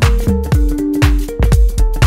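Background music with a steady kick-drum beat and held notes that step between pitches over it.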